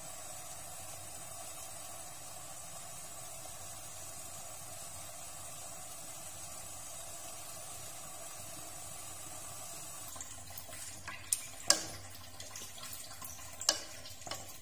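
Steady hiss of a pot of braising pork boiling under a glass lid on a gas burner. About ten seconds in it gives way to a run of sharp clicks and knocks as the pot is handled and peeled quail eggs are dropped in; the loudest come a little before and a little after the thirteen-second mark.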